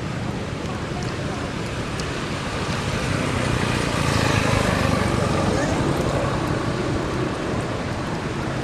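Steady outdoor background noise of distant traffic and indistinct voices, swelling a little around the middle.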